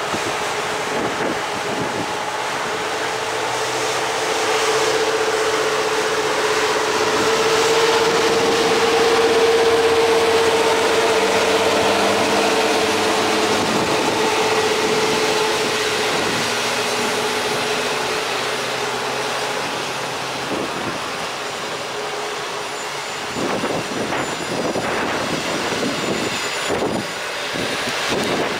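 Electric-locomotive-hauled passenger train passing close by: a steady rushing noise with a hum that swells as the locomotive goes past and then fades. The coaches follow, and near the end their wheels clack over rail joints several times.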